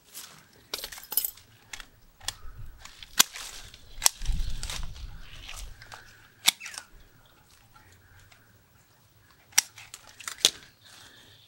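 Pruning shears snipping small ficus twigs: a series of sharp, irregularly spaced clicks, with a brief dull handling rumble about four seconds in.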